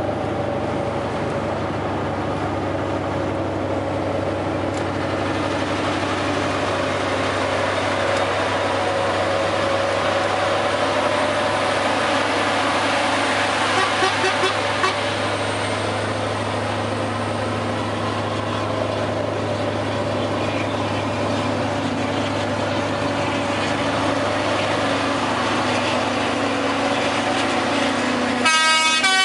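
Steady drone of a heavy truck's engine and road noise heard inside the cab at motorway speed, with a few brief toots about halfway. Near the end a truck air horn starts, sounding a run of changing notes.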